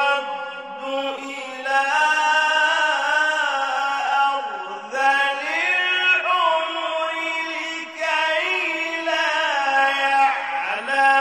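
A man reciting the Quran in a melodic chant, holding long ornamented notes that glide up and down in pitch, with short breaks about four and eight seconds in.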